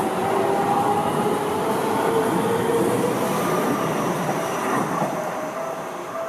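Seibu Ikebukuro Line electric commuter train running at the station: a dense rumble of wheels and motors, with a whine that rises slowly in pitch over the first three seconds. The sound eases off a little in the last couple of seconds.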